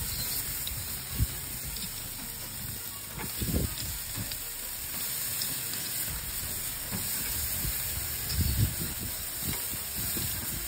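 Beef short ribs and chicken thighs sizzling on a barbecue grill, a steady hiss, with a few dull bumps as the meat is handled.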